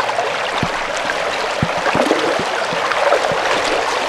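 Shallow, fast river water rushing and splashing around legs and a dip net as a foot stirs the stones of the riverbed to flush creatures into the net, with small scattered splashes throughout.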